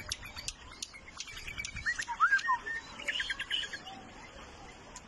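White-eared bulbul calling: a couple of short slurred whistles about two seconds in, then a quick run of short chirps. A string of sharp clicks runs through the first two seconds.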